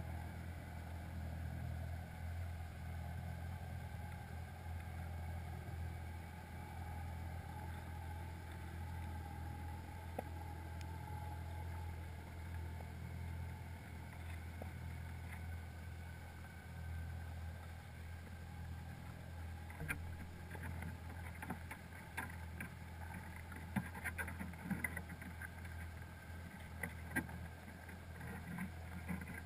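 Muffled underwater sound heard through a GoPro's waterproof housing inside a crab pot on the sea floor: a steady low hum, with scattered clicks and light knocks that become more frequent about two-thirds of the way in.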